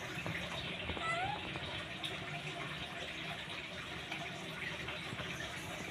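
Young macaque giving a few short, high squeaks about a second in, over a steady rushing hiss.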